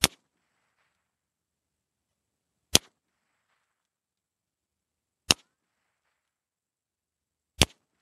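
Four gunshots from a Mare's Leg lever-action gun, fired one at a time about two and a half seconds apart, heard from about 50 yards downrange beside the target jug. Each report is a single sharp crack that dies away quickly.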